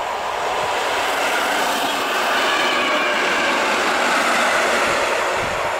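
EN57 electric multiple unit passing close by at speed: a steady rush of wheel and running noise that swells to its loudest about four seconds in as the cars go past.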